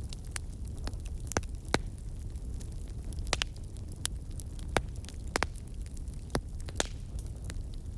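Wood campfire crackling, with irregular sharp pops and snaps over a low steady rush.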